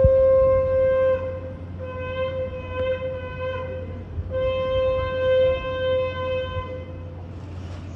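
A ram's-horn shofar blown in long, steady notes: one already sounding as it begins and ending about a second in, a second from about two to nearly four seconds, and a third from about four to seven seconds, with short breaks between.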